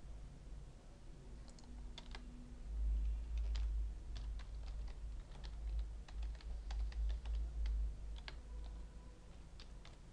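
Typing on a computer keyboard: scattered, uneven keystrokes over a low rumble.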